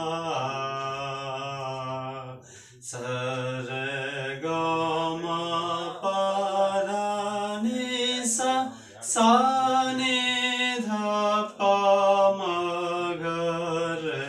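A young man singing a Kannada folk (janapada) song solo and unaccompanied, in long held notes with short breaks between phrases.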